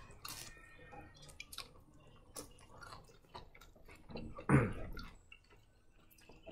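Quiet chewing with small wet mouth clicks from someone eating fried chicken, and one brief louder sound about four and a half seconds in.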